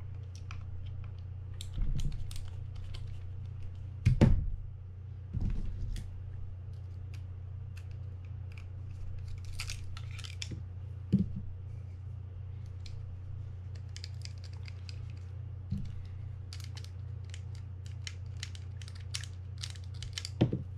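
Small clicks, scrapes and taps of a mini screwdriver working screws out of a Penn 320GTi reel's frame and of small reel parts being handled, with a few louder knocks. A steady low hum runs underneath.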